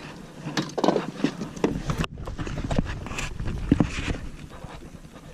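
Irregular knocks and taps from handling on a kayak, with a few brief breathy sounds about a second in.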